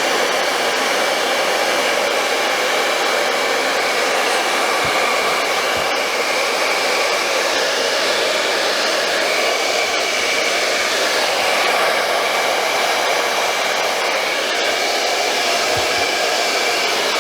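Handheld hair dryer blowing steadily, its airflow rushing with a faint high whine, used to heat a clear adhesive sole protector so it can be molded onto a sneaker sole. A few faint soft knocks sound under it.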